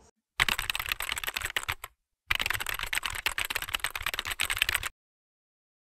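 Rapid keyboard typing sound effect: fast, dense key clicks in two runs, the first about a second and a half long, then after a brief pause a second of about two and a half seconds.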